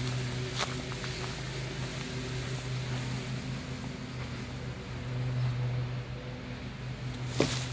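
A steady, low mechanical hum, with a few sharp clicks; the loudest click comes near the end.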